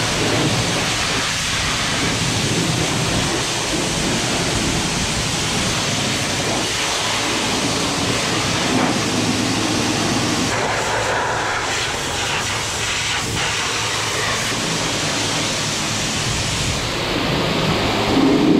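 High-pressure water jet from a car-wash pressure-washer wand, spraying mud off a zero-turn mower deck and an aluminium trailer bed in a steady hiss. The hiss turns duller near the end.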